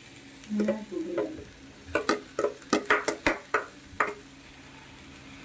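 A spoon scraping and knocking against a pan as ground leftover dosa is tipped in and stirred into fried onions and spices, with about a dozen sharp taps between two and four seconds in.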